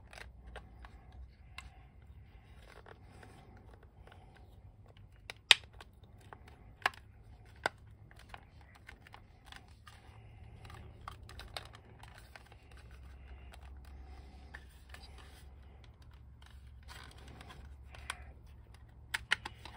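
Hard plastic toy boat parts being handled and pressed together, with scattered clicks and taps as pieces are fitted; one sharp click about five and a half seconds in stands out as the loudest.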